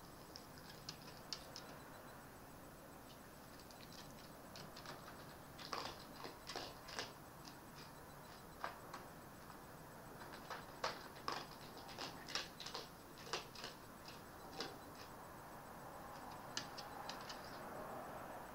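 Red fox eating from a bowl: faint, irregular crunching and clicking chews that come in clusters with short gaps.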